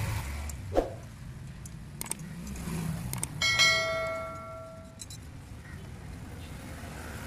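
Metal clinks as nuts and washers are fitted onto the wheel studs of an auto rickshaw's brake drum. About three and a half seconds in, a struck piece of metal rings out with a bell-like tone that fades over about a second and a half.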